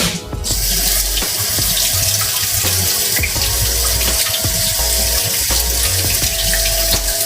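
Kitchen tap running in a steady stream into the sink; it starts about half a second in and shuts off near the end. Background music with a bass line plays underneath.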